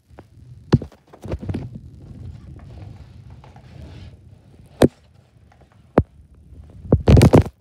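Handling noise from a phone being moved about by hand: a few sharp knocks, a low rumble for a few seconds, and a loud burst of knocking and rubbing near the end.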